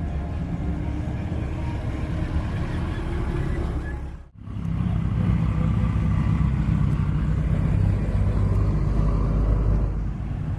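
Car engines running at a car show, a steady low rumble; about four seconds in the sound cuts out briefly and comes back as a louder, deeper engine rumble.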